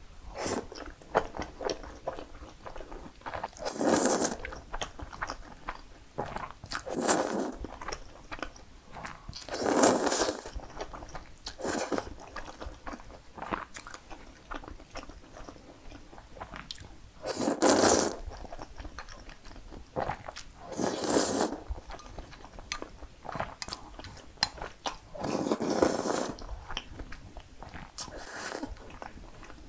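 Close-miked eating of cream-sauce spaghetti: about half a dozen long slurps of noodles, with wet chewing and small mouth clicks in between.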